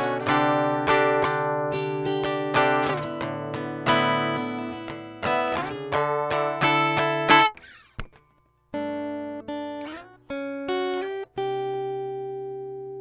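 Guitar picking a melody over chords, with notes plucked in quick succession. It stops abruptly about seven and a half seconds in and is quiet for about a second, then resumes with slower single notes, the last one left ringing.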